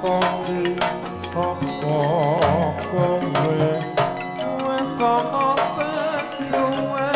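Javanese gamelan ensemble playing tayub music: layered metallophone tones with drum strokes, and a wavering female vocal line entering about two seconds in and again near the end.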